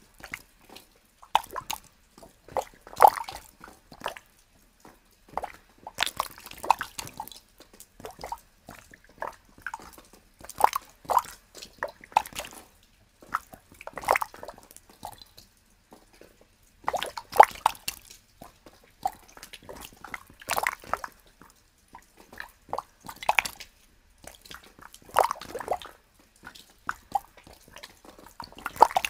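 Water drops dripping into holes in cold snow, falling irregularly, singly and in quick clusters, each drop a short sharp plop with a brief pitched ring.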